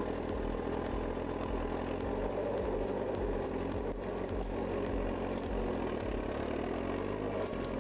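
A heavy machine's engine running steadily at a constant speed.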